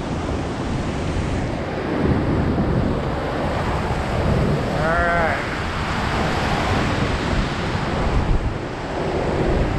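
Rushing whitewater of a river rapid beside a rowed dory, with wind buffeting the microphone, growing a little louder a couple of seconds in. About halfway through, a short voice-like whoop rises and falls.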